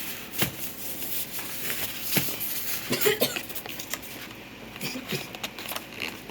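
Keyboard packaging being handled: cardboard and plastic wrapping rubbing and rustling, with scattered light knocks and clicks.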